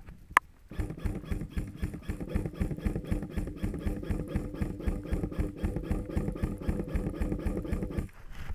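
Airsoft electric gun (AEG) firing full auto: one long continuous burst of rapid, evenly spaced shots over the steady whine of the gearbox motor, lasting about seven seconds and cutting off suddenly. A single sharp crack comes just before the burst starts.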